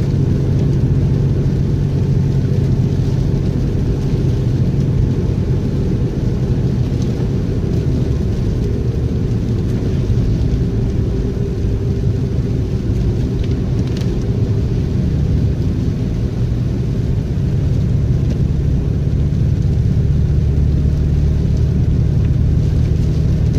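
Steady low rumble of a car on the road, an even drone that holds throughout without change.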